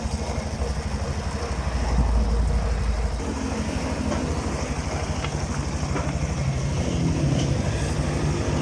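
Italika V200 motorcycle's single-cylinder engine running steadily on its stand with a fast, even throb, a little louder for a moment about two seconds in, with a few faint clicks.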